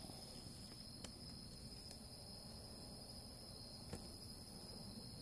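Faint, steady chorus of night insects trilling in high-pitched bands, with two faint ticks, about a second in and near four seconds.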